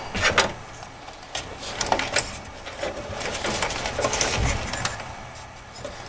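Power-supply cables and plastic connectors being handled and pushed around inside a metal PC case: irregular rustling with scattered clicks and knocks.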